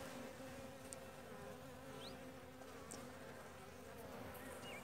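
Honeybees humming faintly and steadily over an opened hive.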